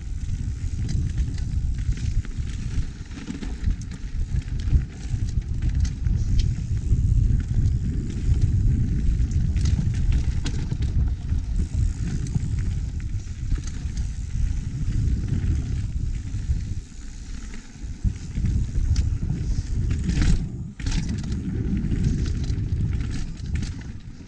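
Mountain bike riding down a dirt trail: a steady low rumble of tyres over the ground and wind on the microphone, with scattered clicks and rattles from the bike and the trail. It goes briefly quiet about three-quarters of the way through.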